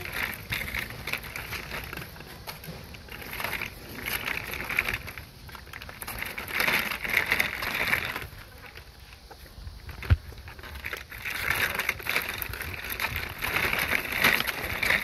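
Plastic wheels of a baby walker rolling and rattling over brick paving, in uneven stretches. There is a single sharp knock about ten seconds in.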